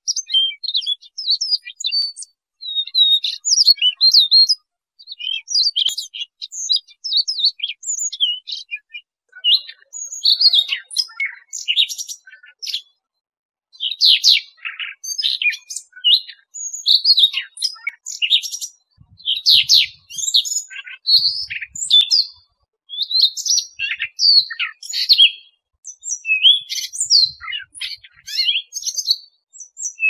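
Male Siberian rubythroat singing: a rapid, varied warble of high notes delivered in phrases of one to two seconds, separated by brief pauses.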